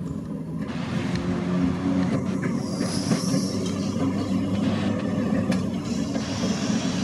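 Open crossbench electric tram rolling along its track toward the listener: a steady low hum and the rumble of steel wheels on rail, growing louder over the first couple of seconds, with a brief faint high wheel squeal about three seconds in.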